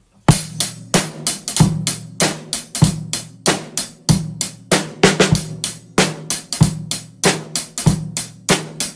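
Intro music played on a drum kit alone: a steady beat of kick and snare hits, about three a second.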